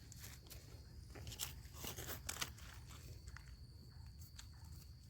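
Dry leaf litter on the forest floor crunching and rustling in a few short crackles, about one and a half to two and a half seconds in, over a faint steady high tone.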